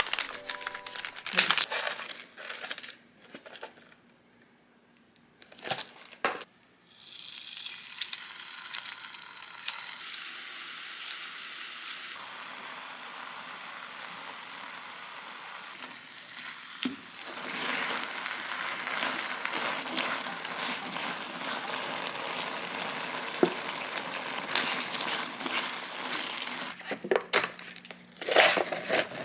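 Kimchi stir-frying in a frying pan: a steady sizzle while it is stirred with a spoon. Before it, paper-and-film cookie bags crinkle, and near the end the paper lid of an instant-noodle cup is peeled back with loud crinkling.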